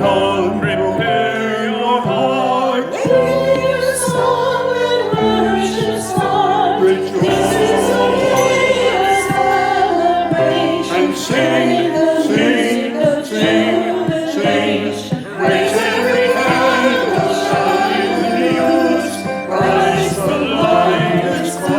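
Voices singing a hymn with instrumental accompaniment, the sung notes wavering with vibrato over steady sustained chords.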